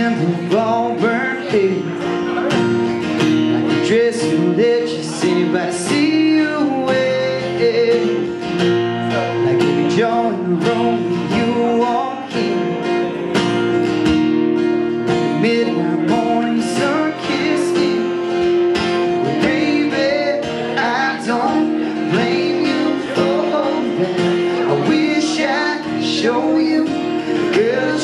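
Live country song on two acoustic guitars, strummed and picked steadily, with a man's voice singing over them at times.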